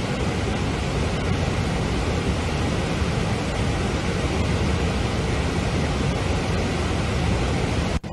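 Reservoir floodwater rushing out through raised dam gates: a steady, dense rush, heaviest in the low end. It cuts out for an instant near the end.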